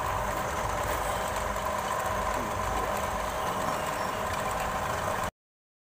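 Bench drill press, driven by a 2 horsepower motor, running steadily with its bit cutting into a rectangular iron tube. The sound cuts off suddenly near the end.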